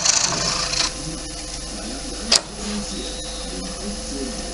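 Gouge cutting a spinning wet cherry-wood bowl blank on a wood lathe: a loud hiss of peeling shavings that stops about a second in. The lathe keeps running with a steady hum, and a single sharp click comes a little past two seconds in.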